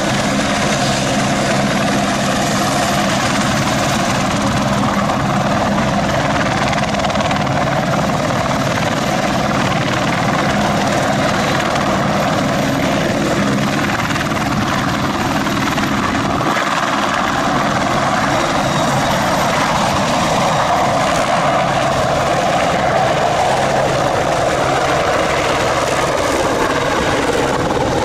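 Airbus AS355F2 Ecureuil 2 twin-turbine helicopter with two Allison C20F turboshafts, running steadily and loudly as it lifts off into a hover and climbs away, with a thin high turbine whine over the rotor noise.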